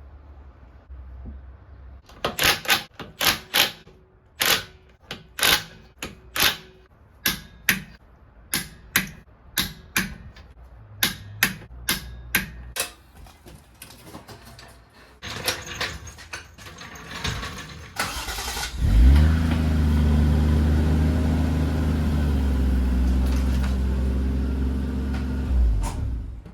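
A run of about twenty sharp clicks, then the Toyota Chaser's 1JZ-GTE straight-six turbo engine is cranked briefly, catches and idles steadily before the sound cuts off abruptly near the end.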